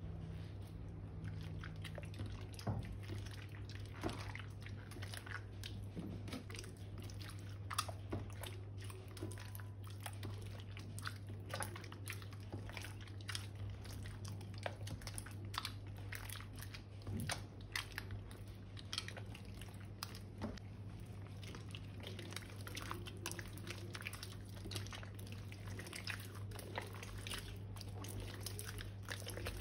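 Slime being kneaded and mixed, giving irregular small crackles, clicks and squelches throughout, over a steady low hum.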